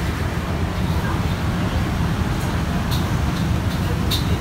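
Steady low rumble of road traffic going by, with a couple of light clicks about three and four seconds in.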